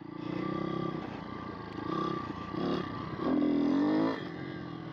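Pit bike's single-cylinder four-stroke engine running under throttle as it is ridden, its pitch dipping about two and a half seconds in, then revving up higher and louder before dropping off about four seconds in.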